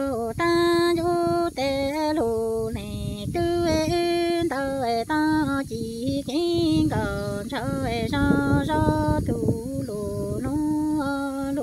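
A woman singing Hmong kwv txhiaj, the chanted sung poetry, unaccompanied: one voice holding long notes that step up and down between a few pitches.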